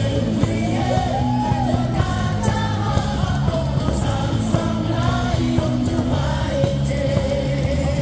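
Baseball stadium crowd singing a cheer song along with loud amplified music, over a steady beat.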